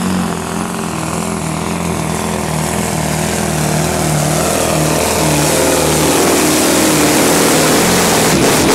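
Scania 164-480 pulling truck's V8 diesel engine running flat out under load as it drags a weight-transfer sled down a clay track, its pitch wavering. It grows louder as the truck comes close.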